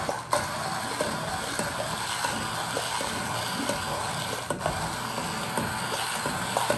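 Handheld immersion blender running in a glass bowl of cream soup and milk, blending it smooth with a steady whirring that cuts off at the very end.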